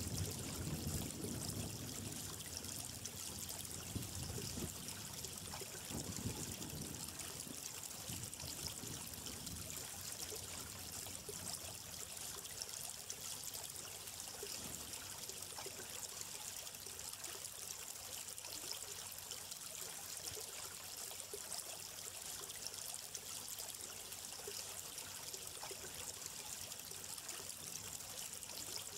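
Small stream of water trickling and pouring steadily over stones, with no pitched sounds. Deeper, uneven low splashing in the first several seconds fades out, leaving an even hiss.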